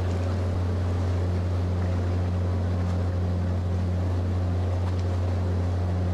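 Steady low hum of the ferry Azalea Maru's engine machinery, heard from on deck, with a fainter higher tone that comes and goes over it.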